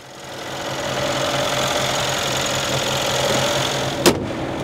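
The 2014 Mercedes-Benz S63 AMG's 5.5-litre M157 twin-turbo V8 idling steadily with the hood open. About four seconds in, the hood is pushed shut with one sharp thump as it latches.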